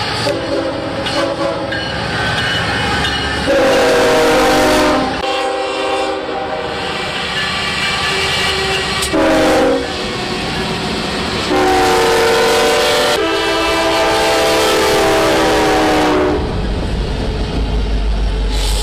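Diesel freight locomotives passing with their multi-note chime horns sounding: a long blast about three and a half seconds in, a short one near ten seconds, then a long blast from about eleven and a half to sixteen seconds, over the rumble and wheel clatter of the train. Near the end a deep engine rumble as a locomotive passes close.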